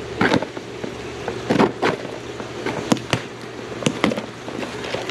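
Irregular rustling and handling noise with several sharp clicks and knocks, as gear and its plastic packaging are picked up and handled.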